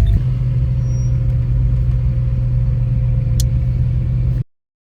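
A car engine running steadily with a low, even rumble and no revving, which cuts off abruptly near the end.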